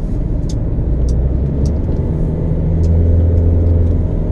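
Car engine and road noise heard from inside the car on a winding mountain road. The engine note rises and grows louder about halfway through, with a few light ticks over it.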